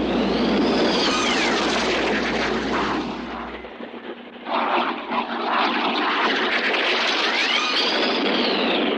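Cartoon sound effect of a jet-like engine roar with a whine that rises and falls, played twice in a row.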